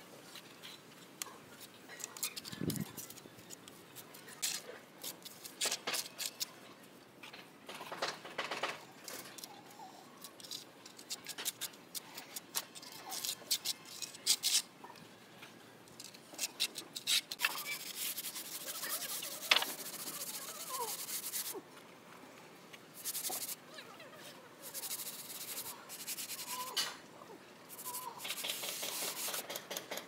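Small steel trowel scraping and pressing wet cement mortar against a metal straightedge held on a rendered wall, in many short strokes with light clicks. From about halfway on come longer, denser rubbing strokes as the fresh mortar is smoothed with a sponge.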